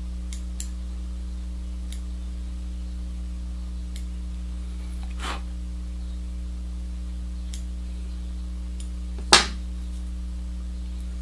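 Scissors snipping stray fibres off a fly tied in a vise: a handful of short, faint snips spread out, and one sharper, louder click about nine seconds in. A steady low electrical hum runs underneath.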